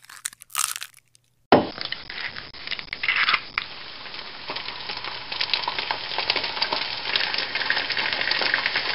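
Dense crackling, crunching noise full of small clicks, starting suddenly about a second and a half in and running on steadily.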